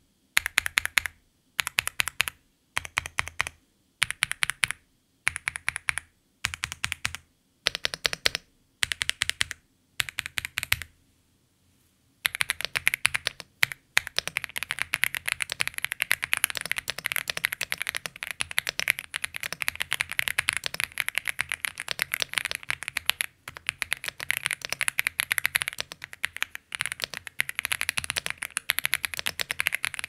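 AULA F75 mechanical keyboard with LEOBOG Reaper linear switches in a plastic case being typed on. First come short bursts of a few keystrokes about a second apart. After a brief pause about eleven seconds in, it changes to continuous fast typing.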